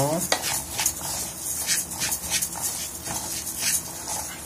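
Spoon stirring and scraping rice grains around a pan, in short strokes about twice a second, as the raw rice is sautéed with garlic before water goes in.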